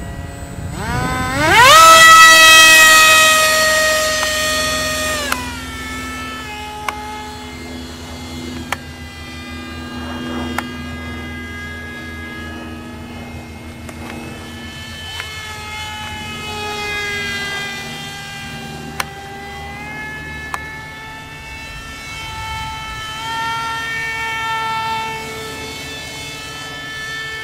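Small electric motor and pusher propeller of an RC flying wing whining up steeply to full throttle about a second in, held high and loud for a few seconds, then throttled back. Through the rest the whine rises and falls in pitch as the throttle changes and the model flies past, with a few short clicks.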